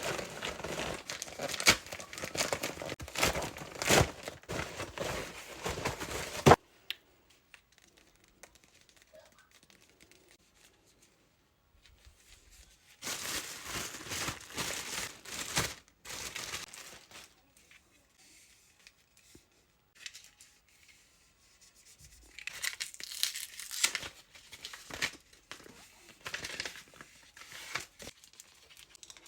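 Packaging being torn open and crinkled by hand: dense rustling and tearing for the first six seconds or so, another stretch about halfway through, and more near the end, with quiet pauses between.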